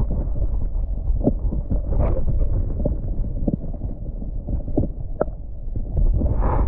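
Low, steady rumble of wind buffeting the microphone, with scattered soft knocks and taps from handling.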